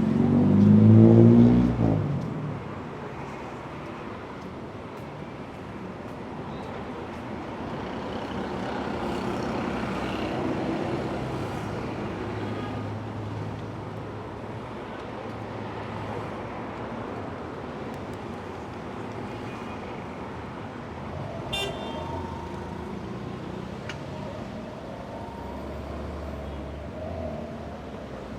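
City street traffic: a steady wash of road noise from passing cars. In the first two seconds a vehicle passes close and loud, its engine note rising, and a brief sharp clack sounds about three-quarters of the way through.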